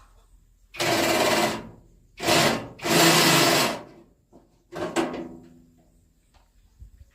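A small power tool runs in four short bursts of about half a second to a second each, with a sharp click during the last one.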